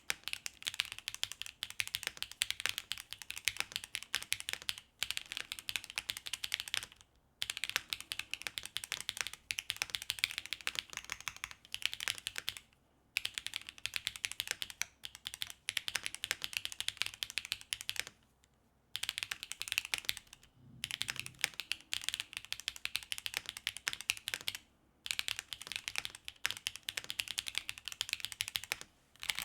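Mechanical keyboard with HMX T-Rex linear switches on a carbon plate, typed on fast and continuously, the key clacks broken by a handful of short pauses.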